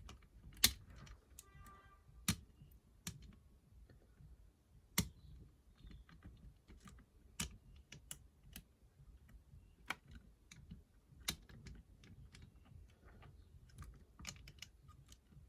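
Irregular light clicks and taps from a lock-pick wire and tension tool working the levers of a 5-lever mortice lock, a sharp click every half-second to two seconds.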